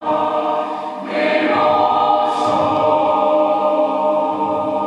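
Choral singing with long held chords, played back through a single-ended RCA 808 valve amplifier. It starts abruptly.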